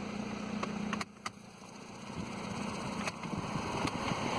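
2003 Toyota Corolla heater/AC blower fan, freshly cleared of leaves and debris, running with a steady hum and no grinding. A few clicks about a second in, then the blower's rushing noise grows steadily louder as it is turned up toward max.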